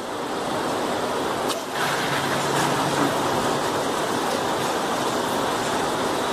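Steady mechanical rumble and rattle of a multi-layer plywood hot press and its panel loader running, with a brief dip about a second and a half in and a faint steady hum after it.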